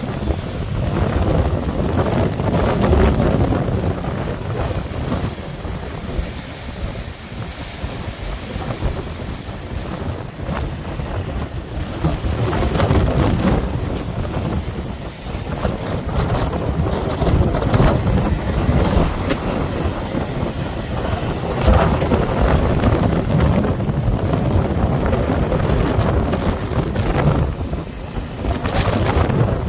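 Gusty wind buffeting the microphone, rising and falling in strength.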